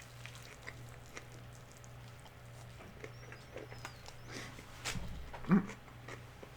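Close-up mouth sounds of someone chewing a mouthful of chicken flauta: soft wet clicks and smacks, with a short louder low sound about five and a half seconds in.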